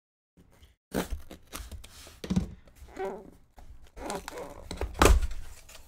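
A cardboard shipping case being handled and torn open by hand: irregular tearing, scraping and rustling of the cardboard, with a heavier thump about five seconds in.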